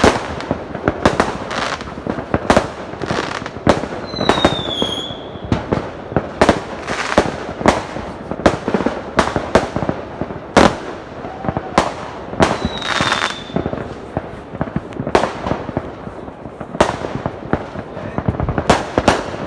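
Fireworks going off: a steady run of sharp bangs at irregular intervals, about one or two a second, over a constant crackle, with a short falling whistle twice.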